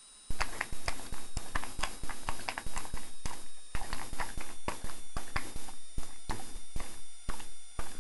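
English springer spaniel smacking its lips and clicking its tongue and jaws over and over, trying to work loose peanut butter stuck to the roof of its mouth. The wet smacks come about four or five a second, starting just after the start.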